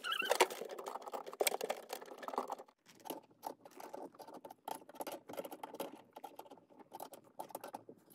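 Faint scratching and irregular small clicks as a braided stainless-steel supply hose and its metal coupling nut are handled and screwed by hand onto a T-valve.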